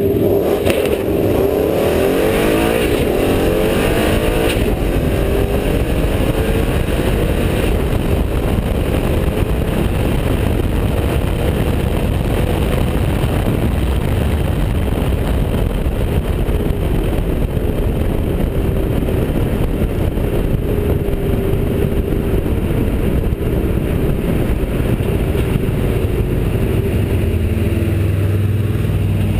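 Ford Mustang GT's 5.0 Coyote V8 launching from the line and accelerating hard down a drag strip, its pitch climbing through the gears, with rushing air over the car-mounted camera. The engine eases off near the end.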